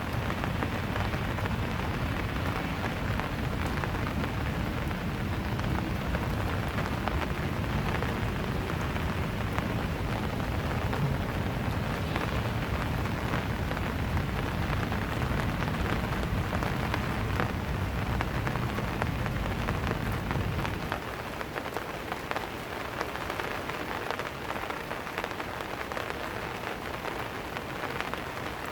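Steady rain falling and pattering on surfaces, with many separate drops ticking. A low rumble underneath stops about three-quarters of the way through, leaving the rain a little quieter.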